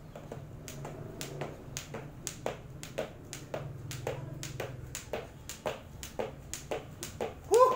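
A skipping rope slapping the floor in a steady rhythm, about three times a second. A short loud call cuts in near the end.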